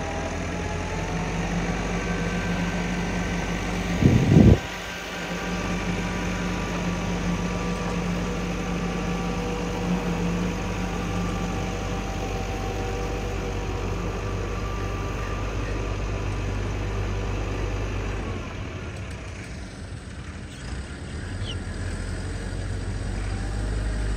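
Tractor's diesel engine running steadily as it pulls a rotavator through a flooded rice paddy, puddling it for planting. There is one brief loud thump about four seconds in. The engine sound drops away for a couple of seconds near the end, then a low rumble comes back.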